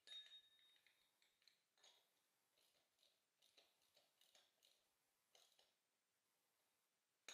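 Near silence, with faint scattered ticks and light scraping as a new oil filter is threaded onto the engine by hand, and a brief faint squeak right at the start.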